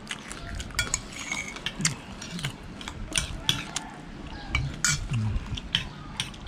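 Metal spoons clinking and scraping against ceramic plates of rice porridge, in irregular scattered clinks as the children eat.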